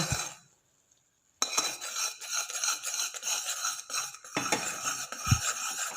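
A spoon scraping and clinking around a pan, stirring thickening jaggery syrup to keep it from sticking. It starts abruptly after about a second of silence, breaks off briefly a little past four seconds, and there is a dull knock near the end.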